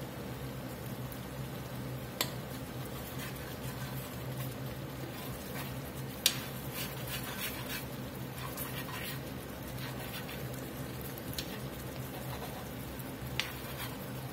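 Metal spoon stirring and spooning thick gravy in a cast iron skillet, with a few sharp clinks of the spoon against the pan, the loudest about six seconds in. Under it the gravy simmers faintly over a steady low hum.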